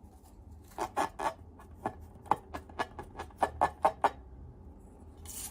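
Slime being squeezed and poked, giving about a dozen short, sharp pops of trapped air at an uneven pace, then a brief hiss near the end.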